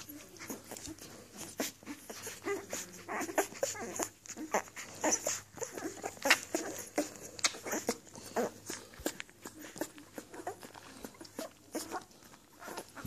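Newborn puppies suckling at their mother's teats: a run of irregular short wet clicks, with small whimpers and squeaks among them.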